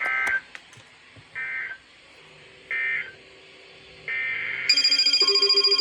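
Emergency Alert System end-of-message data bursts on weather radio: three short, shrill digital warbles about a second and a half apart, marking the end of the flood warning. About four seconds in, another data burst starts the next alert's header. Moments later a loud, rapidly pulsing electronic alert tone with several pitches begins.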